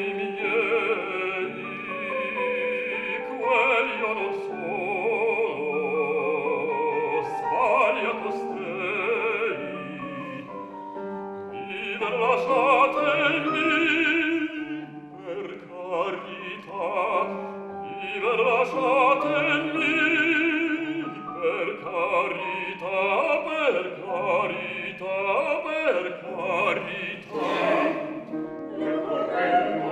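Operatic singing by a trained classical voice, with wide vibrato on held notes and phrases that rise and fall, in a classical music performance.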